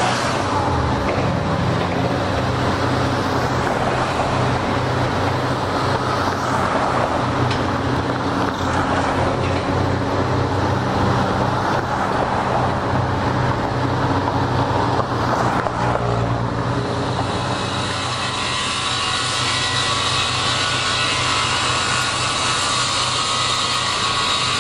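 Construction machinery engines running steadily, with street traffic passing in swells every few seconds. About two-thirds of the way through the sound changes to a steadier, higher hiss.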